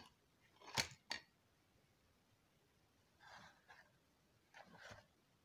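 Packaged fishing-line spools handled and set down on a cloth: a sharp click at the start and two short plastic knocks about a second in, then soft rustling of the packaging near the end.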